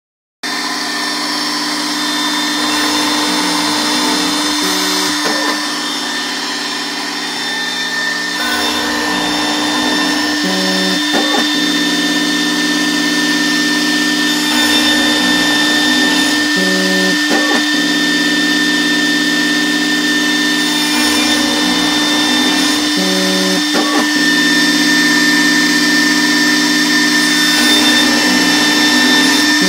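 ShopBot Desktop CNC router spindle running steadily at about 20,000 rpm with a steady whine, a 1/16-inch tapered HSS end mill cutting the blades of a small metal cooling fan. The axis drives join in with a repeating pattern of lower tones about every six seconds as the cutter makes its passes.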